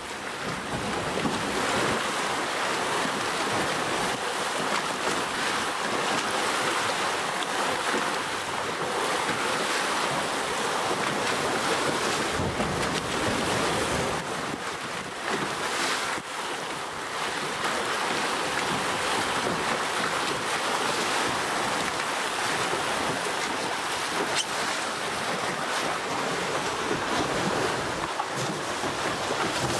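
Water rushing and splashing past the hull of a Telstar 28 trimaran under sail, with wind buffeting the microphone.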